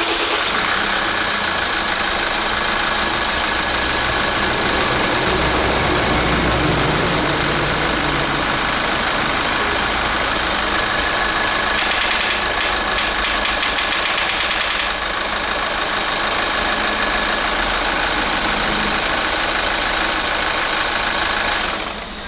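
A Kia Grand Carnival 2.2 R diesel engine running steadily. From about 12 to 15 seconds in, a rapid clacking ('ttak-ttak-ttak') comes from the intake manifold's swirl-valve actuator. The mechanic suspects either a sticking swirl valve or stripped gear teeth in the actuator motor.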